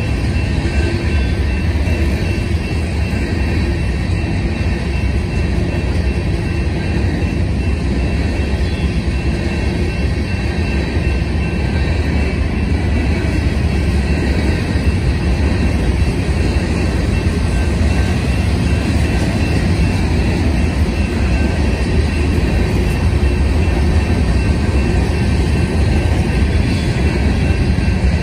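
Empty covered hopper cars of a freight train rolling past, giving a loud, steady rumble of steel wheels on the rails.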